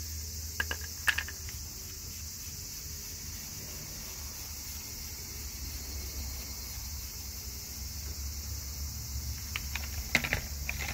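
Steady, high-pitched chirring of insects, with a low hum under it. A few short sharp clicks come about a second in and again near the end.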